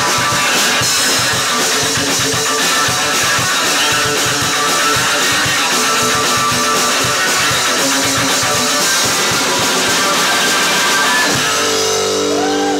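Rock band playing: electric guitar with a drum kit. Near the end the drumming stops and a chord is left ringing.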